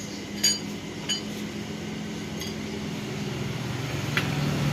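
A few light metallic clinks, about four scattered strikes, over a steady low hum that drops a little in pitch about three seconds in.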